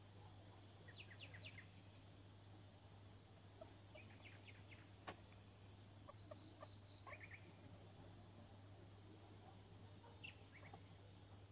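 Faint, very short high squeaks from a small animal, in quick runs of three or four that come back several times, over a low steady hum; a single sharp click about halfway through.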